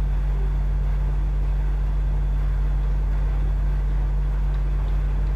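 A steady low hum, even in level, with nothing rising above it.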